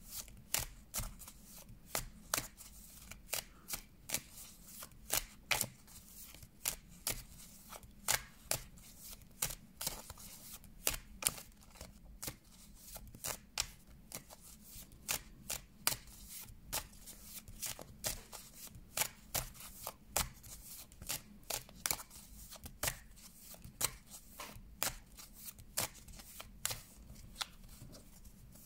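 A deck of tarot cards being overhand-shuffled by hand: a steady run of short, sharp card slaps, roughly two a second, as small packets are dropped onto the deck.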